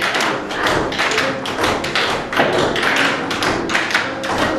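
Tap shoes of a group of tap dancers striking a wooden floor in unison, a quick, dense run of sharp taps and heavier heel stomps, with music playing faintly underneath.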